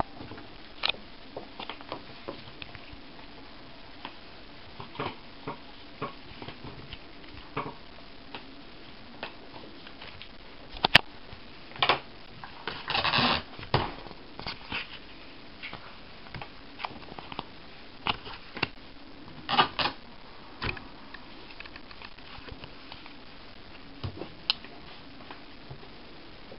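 Hands handling small objects, paper and plastic wrappers: scattered taps and clicks with short bursts of rustling, including a longer rustle about halfway through as a booklet's pages are flipped.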